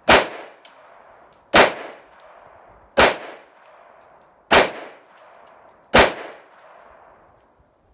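Five gunshots fired one at a time, about a second and a half apart, each with a short echoing tail.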